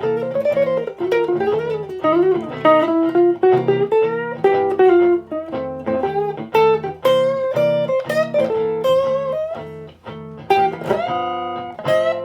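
Electric guitar played through an amp and speaker cabinet: a lead line of single notes with bends and slides over a steady lower backing part.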